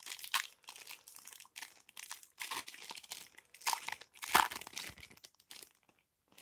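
Foil wrapper of a trading-card pack crinkling and crackling as it is torn open by hand: a run of irregular crackles, loudest about four and a half seconds in, that stop shortly before the end.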